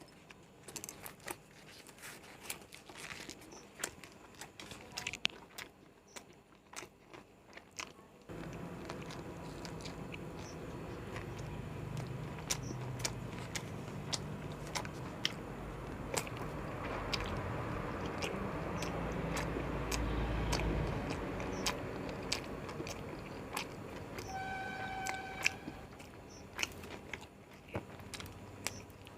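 A person biting and chewing egg rolls close to the microphone, with many small mouth clicks. About eight seconds in, a steady background rumble rises, and near the end a short tonal beep sounds.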